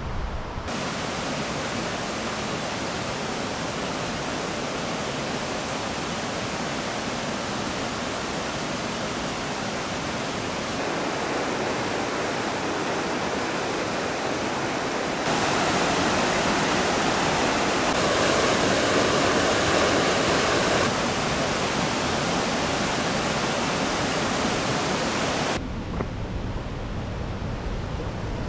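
Steady rush of white water cascading down a rocky waterfall. It grows louder in steps partway through, then cuts off suddenly near the end to a quieter low rumble.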